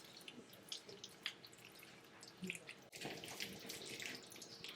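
Faint, wet, sticky squelching and crackles of cheesy macaroni being mixed, scattered irregularly.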